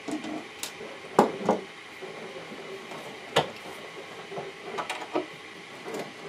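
A hand screwdriver working screws out of the plastic side cover of a Gotway Monster electric unicycle: a few separate sharp clicks and knocks of tool, screws and plastic, the loudest two just over a second in and one about three and a half seconds in.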